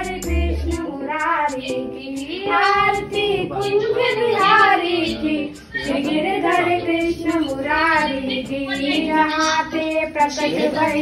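A devotional song playing: a high, child-like voice sings a flowing melody over instrumental backing.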